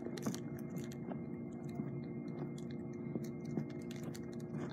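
Handling noise: soft scattered taps and rustles as foam squishy toys and a red plastic basket are handled up close, over a faint steady hum.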